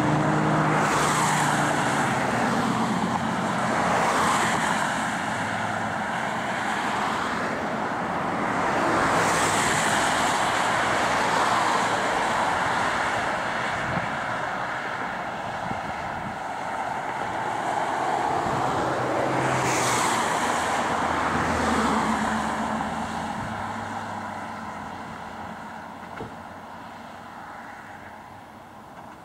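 Road traffic: several cars pass close by one after another, each swelling up and dying away over the steady hiss of the roadway, with the traffic fading near the end.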